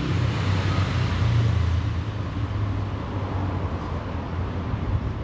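Steady low rumble of a motor vehicle engine with traffic noise, a little louder about a second in.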